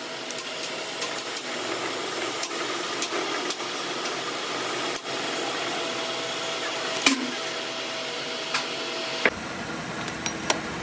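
Metal lathe running while a spinning cutter in its chuck bores into a steel workpiece: a steady machining noise with a faint steady tone, peppered with sharp metallic clicks. A low hum joins near the end.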